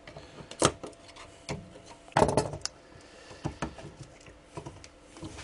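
A screwdriver and circuit boards being handled on a workbench: scattered clicks and knocks, with the loudest cluster of clatter about two seconds in.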